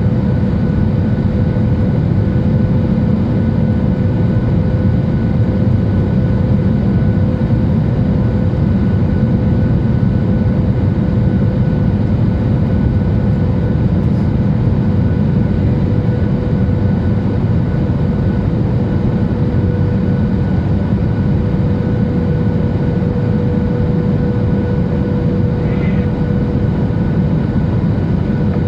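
Steady in-flight cabin noise of a Boeing 737-800: an even, unchanging roar of airflow and its CFM56-7B engines, with a steady hum running through it.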